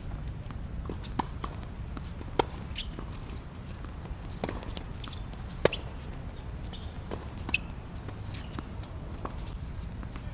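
Tennis ball and footstep knocks on a hard court: a scattered series of sharp knocks, the loudest about two and a half and five and a half seconds in, over a steady low rumble.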